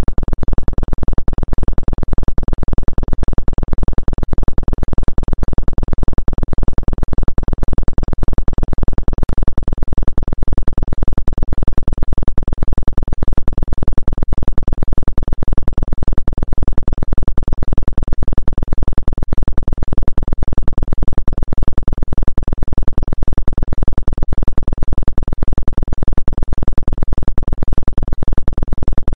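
Steady synthesized drone tone of a 'healing frequency' track labelled 2 Hz, heavy in the deep bass and pulsing evenly and rapidly.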